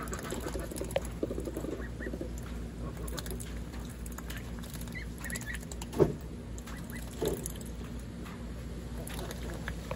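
Young ducks dabbling in a water dish and a feed tray, bills pattering and slurping, with a few quiet quacks in the first two seconds. A short sharp sound about six seconds in is the loudest, and a smaller one follows a second later, over a steady low wind rumble.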